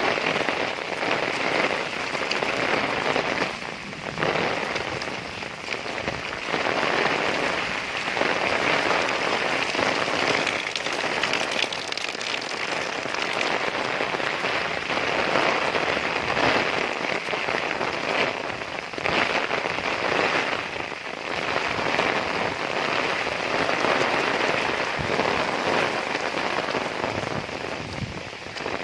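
Heavy rain pouring down, a dense, steady hiss of falling drops that swells and eases every few seconds.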